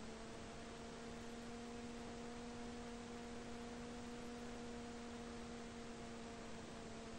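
Steady hum of a SonicModel Mako FPV plane's electric motor and propeller at cruise throttle, one even pitch with overtones under a constant hiss.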